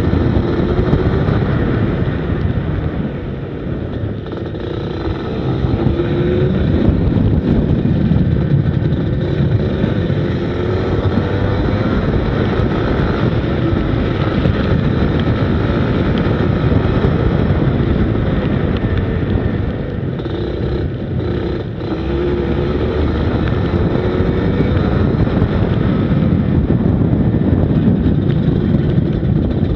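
Go-kart engine heard onboard, its pitch rising under acceleration and falling as the throttle is lifted for corners, with dips about four, eleven and twenty-one seconds in.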